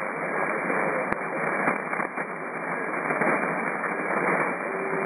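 Shortwave receiver static on the 80-metre band heard through an SSB filter: a steady hiss of band noise with a few sharp crackles of static, the loudest about a second in. Near the end a steady whistle comes in, as from a carrier or tuning tone on the frequency.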